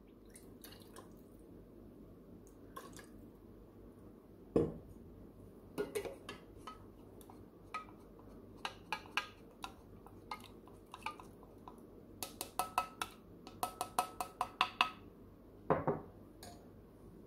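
A spoon stirring oil and mineral water in a small stainless steel jug, clinking against the metal sides: scattered taps at first, then a quick run of ringing clinks, several a second, for about three seconds in the latter half. A dull knock about four seconds in and another near the end.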